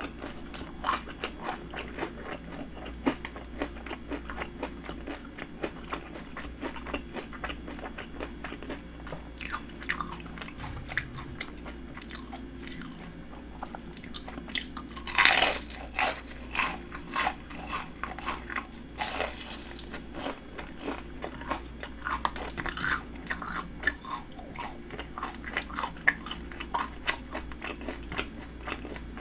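Chewing batter-fried shrimp, small crunches throughout, with two loud crunchy bites about fifteen and nineteen seconds in.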